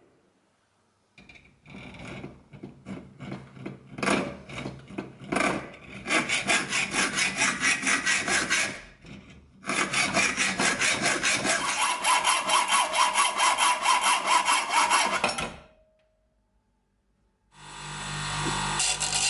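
Hand hacksaw cutting metal stock clamped in a vise: scraping strokes, slow at first, then quick and steady, with a short break partway and a stop near the end. After a moment of silence a bench grinder starts up and runs with a steady hum.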